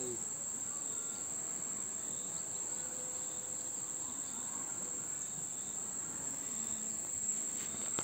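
Steady, high-pitched drone of a chorus of insects, holding one unbroken pitch.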